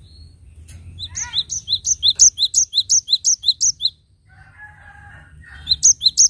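Cinereous tit (gelatik batu) singing: a fast run of repeated, high two-note phrases, about four a second, for nearly three seconds, then a pause and a second run starting near the end.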